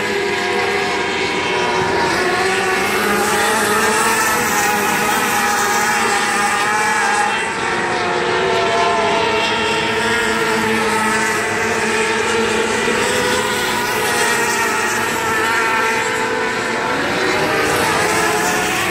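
A pack of race cars running laps on a dirt oval: many engines run together as a steady, high-pitched drone, their pitches rising and falling as the cars circle.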